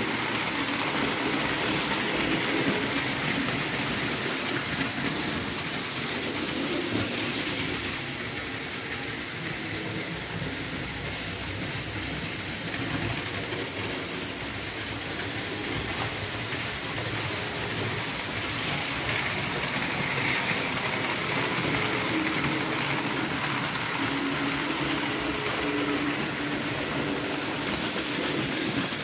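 Model trains running on the layout: a continuous rattling rumble of small wheels on track, with an electric motor hum that wavers up and down.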